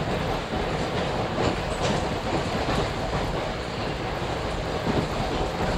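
Commuter train running at speed, heard from inside the passenger car: a steady rumble of wheels on the rails, with a few sharp clacks as the wheels pass over rail joints.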